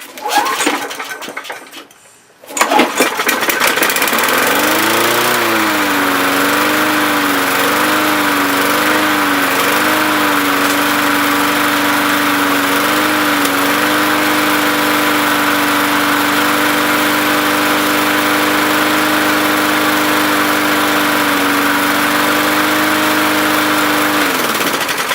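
Small lawn mower engine pull-started. It catches a couple of seconds in and runs with its speed surging up and down about once a second, then settles to a steady run. Near the end it winds down and stops. The surging fits a carburetor in need of cleaning, as the repairer judges.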